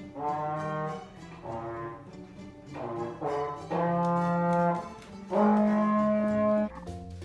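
Music: a slow tune of long held notes, brass-like in sound, with the longest and loudest note near the end.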